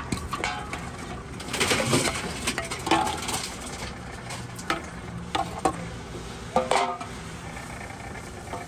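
Aluminium beverage cans fed into a Tomra T-90 reverse vending machine, clattering and knocking against the intake chute and roller bed: a few clusters of knocks, then several single sharp knocks, over a steady low hum from the machine.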